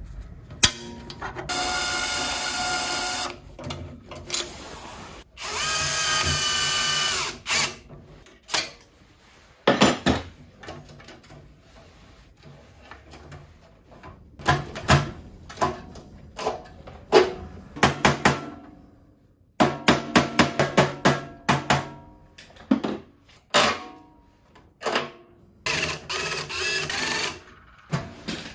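Power drill running in several bursts of one to three seconds, its pitch falling as one burst winds down, with sharp knocks and quick rattling clicks of parts between the runs.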